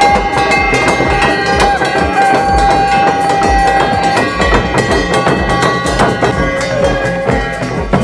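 Conch shell blown in one long steady note over loud traditional drumming; the note ends about four seconds in and the drumming goes on.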